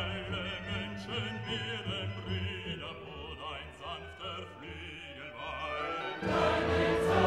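Background music: a classical, operatic-style piece with a voice holding wavering notes over low accompaniment, growing louder and fuller about six seconds in.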